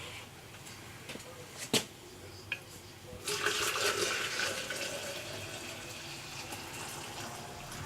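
Boiling water poured from a kettle into a stainless steel French press over the coffee grounds, a steady pour starting about three seconds in and slowly easing off. Before it, a single sharp knock and a small click.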